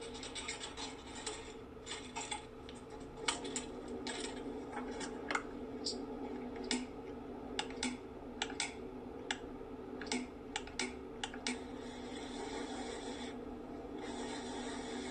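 Irregular sharp clicks and scratchy rubbing noises over a steady low hum.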